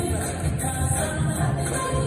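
Recorded song with vocals playing over a hall's sound system as dance accompaniment.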